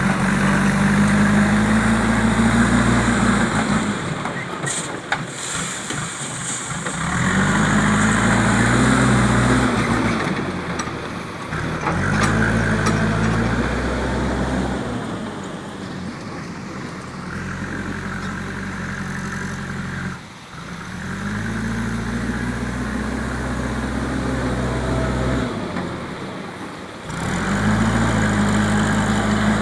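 Backhoe loader's diesel engine working under load, revving up and holding for a few seconds, then dropping back, about six times over, as the hydraulics dig and lift.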